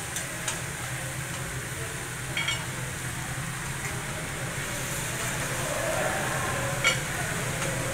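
Meat and vegetables sizzling on a hot teppanyaki griddle while a metal spatula scrapes and taps on the steel plate, with a few sharp clicks, the loudest about seven seconds in.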